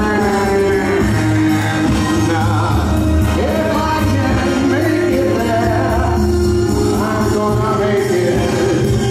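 A man singing into a handheld microphone over amplified music with a deep bass line, holding long notes.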